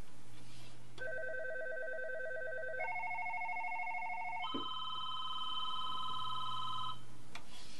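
Roland XV-2020 sound module playing a patch of warbling electronic tones: three notes step up in pitch, each held about two seconds, then stop. A steady low hum runs beneath, with a small click near the end.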